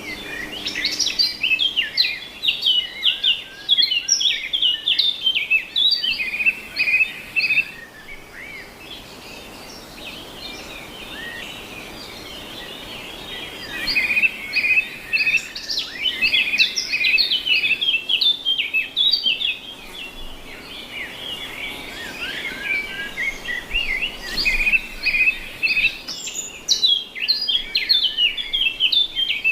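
Songbirds singing in bouts of quick high chirps, repeated notes and trills, with quieter stretches of a few seconds between the bouts.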